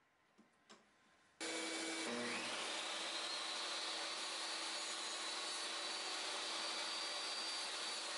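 Table saw switched on about a second and a half in, its whine rising as the blade comes up to speed, then running steadily. Before it starts there are only a couple of faint clicks.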